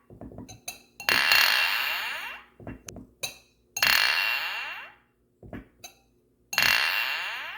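Glasses clinking: three loud clinks, about a second in, near four seconds and about six and a half seconds in, each ringing out and fading over a second or two. Lighter short clinks fall in between.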